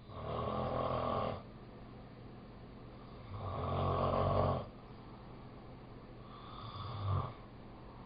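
An animal snoring: three snores about three seconds apart, each about a second long, the last one shorter.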